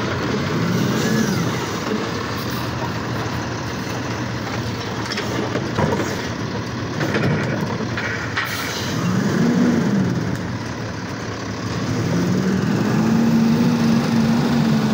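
Automated side-loader garbage truck working its hydraulic arm to lift and empty a trash cart: the diesel engine revs up and down several times and holds a higher speed near the end. A couple of sharp knocks around the middle.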